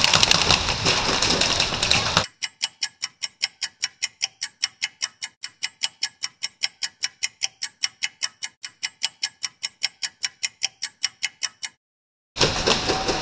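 Rapid, even ticking, about five ticks a second, like a clock or timer, with dead silence between the ticks; it starts about two seconds in and stops abruptly near the end, with outdoor game noise before and after.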